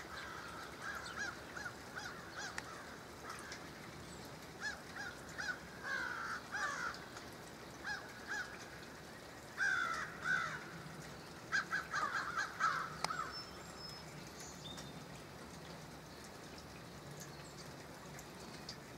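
A bird calling in a string of short, repeated notes, loudest in clusters about ten and twelve seconds in, then falling silent. A faint steady hiss runs underneath.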